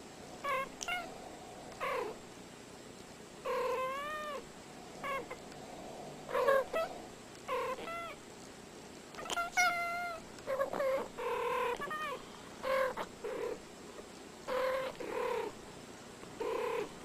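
A cat meowing over and over: about fifteen separate calls, most short, a few drawn out with the pitch bending up and down.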